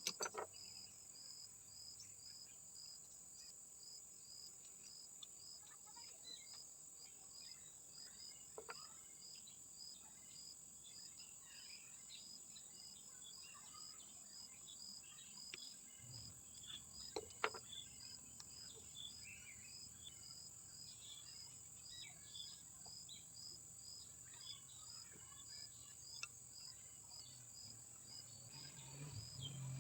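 Faint, steady chirping of crickets repeating a couple of times a second over low background noise, with a few faint knocks.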